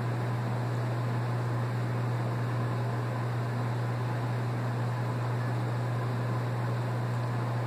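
Steady low hum over an even hiss of room background noise, unchanging in level, like a fan or air-conditioning unit running.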